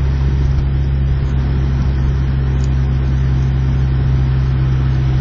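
Honda Civic EJ1's engine and road noise heard from inside the cabin while driving: a steady low drone that does not rise or fall in pitch.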